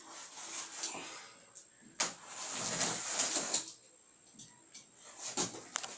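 A knife slicing through the packing tape along the top of a cardboard box: scraping strokes, the longest about two to three and a half seconds in, with a few sharp clicks near the end.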